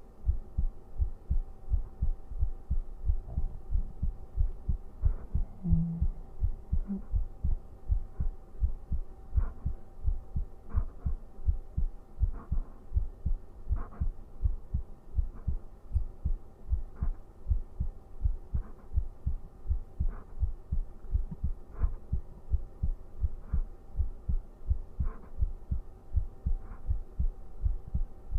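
A person's heartbeat picked up by a microphone pressed against the chest: an even run of low thumps, over a faint steady hum.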